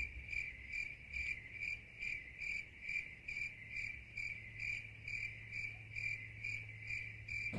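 Crickets chirping, a stock 'awkward silence' sound effect: an even run of short, high chirps, about two and a half a second, over a faint low hum.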